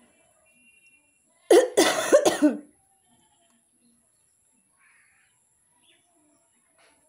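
A person coughs three times in quick succession about a second and a half in. Otherwise there are only faint small sounds.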